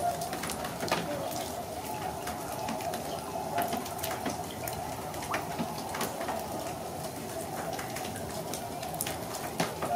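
A distant flock of swans calling in a steady, babbling chorus, with scattered sharp clicks throughout.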